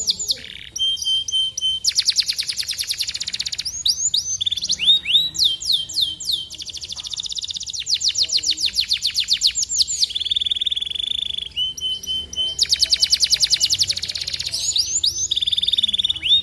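Canaries singing: fast trills of rapidly repeated notes alternate with runs of downward-sliding whistles, and a steady buzzing note is held briefly near the middle.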